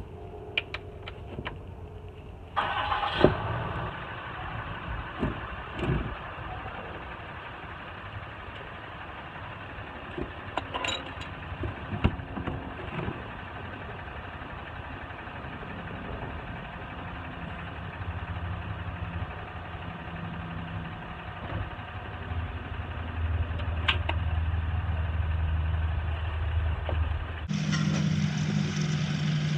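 A vehicle engine running steadily, with scattered sharp clicks and knocks of hand tools. Near the end the sound changes abruptly to a deeper, steadier hum.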